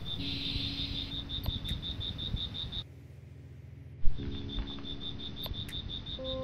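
High-pitched rhythmic chirping call, about eight chirps a second, in two stretches of a few seconds with a short break between them, over a low rough rustle and faint background music notes.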